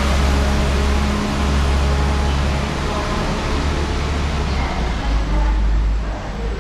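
Diesel train engine running with a steady low drone under a wash of broad mechanical noise, easing off slightly near the end.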